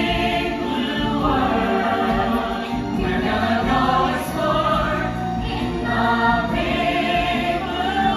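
A musical's cast singing together in chorus with instrumental accompaniment, in long held notes.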